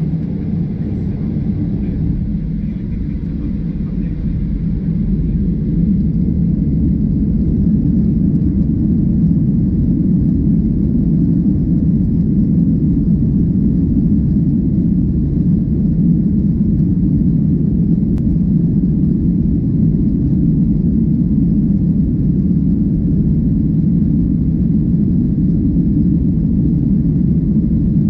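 Cabin noise aboard a Boeing 737-800, a steady low rumble from its CFM56-7B engines and the airflow. It grows louder over the first several seconds, then holds steady.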